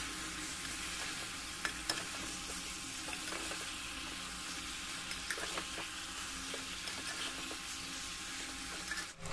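Mutton pieces with onions and spices sizzling steadily as they fry in oil in a pressure cooker pot, a spatula stirring through them with a few light scrapes and clicks against the metal. This is the dry frying (bhuna) stage on high flame, before any water goes in. The sound breaks off abruptly near the end.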